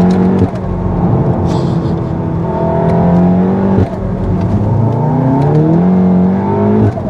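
Stage 3 big-turbo MK7 VW Golf R's turbocharged four-cylinder engine pulling hard under acceleration, heard from inside the cabin. The revs climb, drop at a gear change about half a second in, climb again to another change near four seconds, and rise once more until a third change just before the end.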